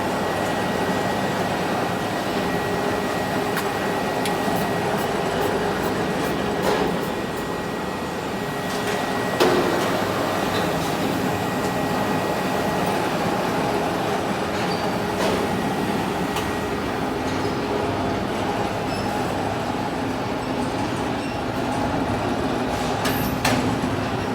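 Steady hum of machinery running in a factory workshop, with a few faint steady tones, and scattered clicks and knocks, one louder about nine seconds in.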